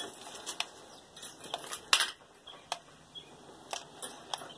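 Scattered sharp clicks and light taps at irregular intervals, the loudest about two seconds in, with no motor running.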